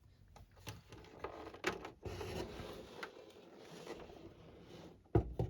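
Handling noises from a table fan being moved about: scattered clicks, light knocks and rustling, with a louder low knock about five seconds in. The fan is not running.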